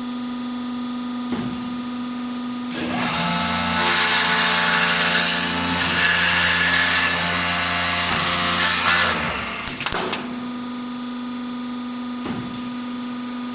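Automatic high-speed wood-turning lathe running with a steady motor hum. From about three seconds in, the cutter bites into the spinning wood and a louder cutting noise joins for about six seconds, then the machine drops back to its quieter running sound.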